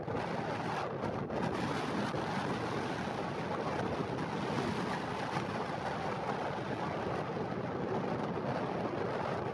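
Pratt & Whitney Canada PW306C turbofan engines of a Cessna Citation Sovereign jet running with a steady, even noise, mixed with wind buffeting the microphone.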